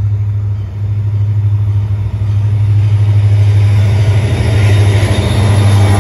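Florida East Coast diesel locomotives approaching and arriving: a steady low engine drone that grows louder about two seconds in, with wheel and rail noise building as the lead unit draws level near the end.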